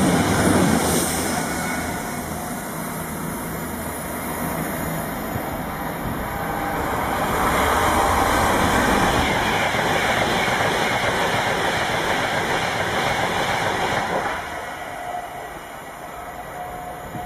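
Express trains running non-stop through a station at speed, a steady rush of wheel, rail and air noise. It is loud as one train's side goes by close at first and eases off. It builds again as a Virgin Pendolino electric tilting train approaches and passes, loud for several seconds, then drops sharply about fourteen seconds in.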